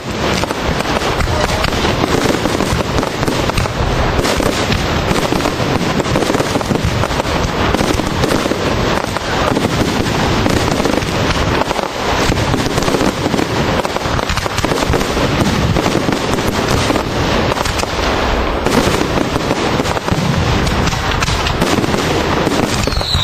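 Aerial fireworks going off in a dense, continuous barrage: rapid overlapping bangs and crackling, with no let-up.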